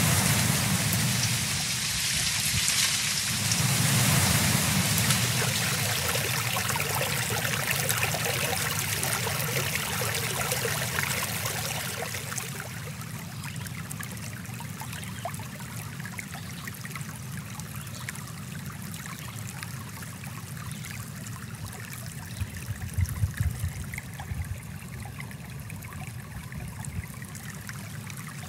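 Running water of a small forest stream, a steady rushing hiss that grows softer about twelve seconds in.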